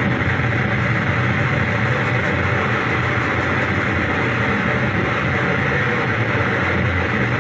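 Harsh noise: a loud, unbroken wall of distorted electronic noise from a table of effects pedals and electronics, amplified through the stage speakers, steady with no breaks or changes.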